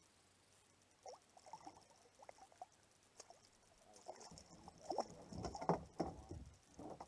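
Water pattering and splashing at the side of the kayak as a hooked Australian bass is handled, growing into louder splashing from about four seconds in.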